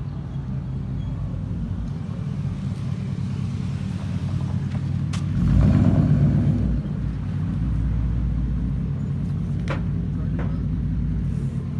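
Mercury Grand Marquis's V8 running as the car rolls slowly by, a low steady exhaust note that swells louder for about a second midway, then settles.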